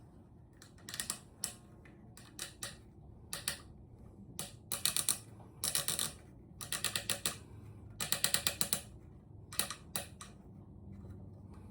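Short rasping strokes of hand work on the biwa's body, each stroke a quick run of fine clicks. About a dozen strokes come in irregular bursts, the densest in the middle.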